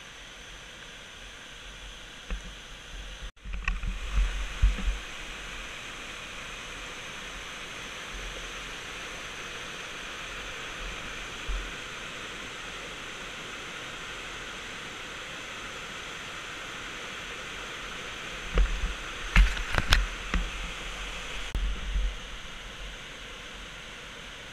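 Steady rush of whitewater from a river waterfall spilling over ledge rock, running at low flow. Low thumps on the microphone come in two spells, about three seconds in and again near the end, and are the loudest moments.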